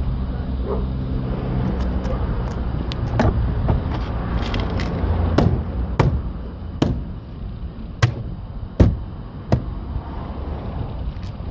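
A fist striking an Audi A6 C6 rear door trim panel to seat its plastic retaining clips into the door: a string of sharp, irregular knocks starting about three seconds in, the loudest about two-thirds of the way through.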